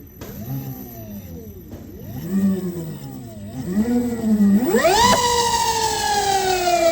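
Ola S1 Pro Gen 2 electric scooter's motor and belt-drive pulley whining as the throttle is blipped several times, the pitch rising and falling. About five seconds in, a hard twist of the throttle sends the pitch shooting up with a harsh screech, and the whine then falls slowly as the drive spins down. The owner blames the screech on the pulley.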